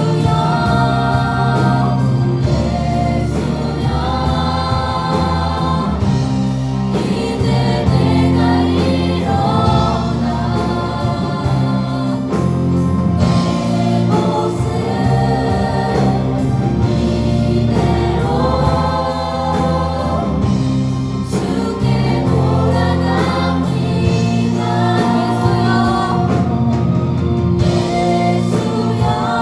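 Praise-and-worship music: a group of voices singing a worship song together over a live band with bass and a steady beat.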